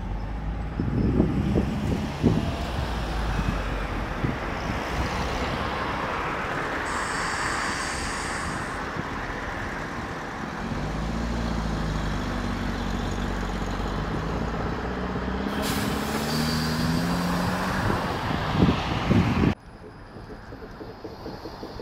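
A trolleybus passing on the street: steady road noise with knocks about a second in and again near the end, and an electric motor whine that rises and falls from about halfway. The sound drops off sharply shortly before the end.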